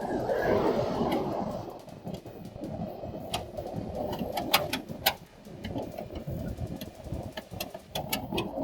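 Freeway traffic rushing past, swelling briefly about half a second in, with many short sharp clicks and taps scattered through it.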